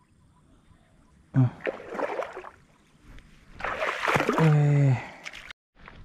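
Water sloshing and splashing, mixed with short wordless vocal sounds from a man, the longer one falling in pitch. It cuts off suddenly near the end.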